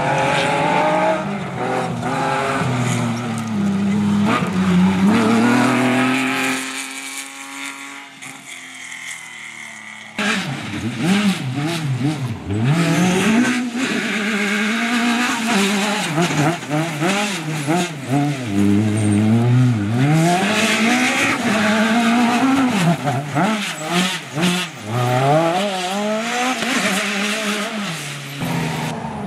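Off-road rally buggies at full throttle on a dirt stage: engines revving hard and rising and falling in pitch with gear changes and throttle lifts. About a third of the way in, one car fades away with a falling pitch, then another car comes in suddenly, its engine rising and falling rapidly as it slides through the corners.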